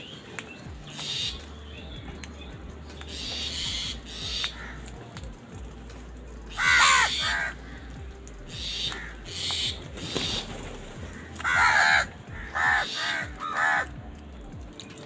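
Crows cawing repeatedly: one loud caw about seven seconds in and a quick run of four caws near the end, with fainter calls from other crows in between.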